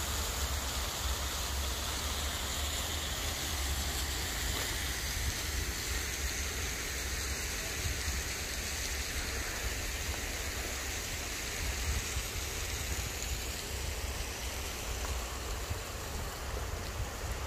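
Fountain jets splashing into a pond, a steady rain-like hiss that thins out a little after about thirteen seconds, over a low rumble.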